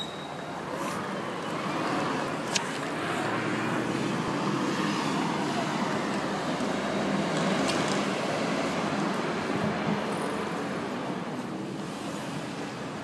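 Road traffic noise that swells over the first few seconds and fades toward the end, as of a vehicle passing on the road alongside. A sharp click about two and a half seconds in.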